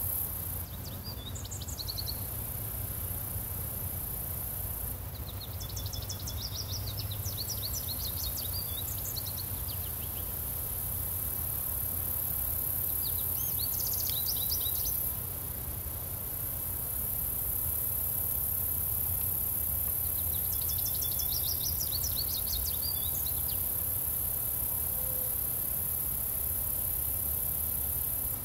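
Steady high-pitched chorus of crickets with a low rumble of breeze throughout, while a songbird sings four bouts of quick, rapid notes, the longest a few seconds long.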